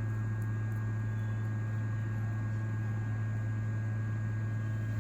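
Steady electrical hum with an even hiss behind it, unchanging throughout.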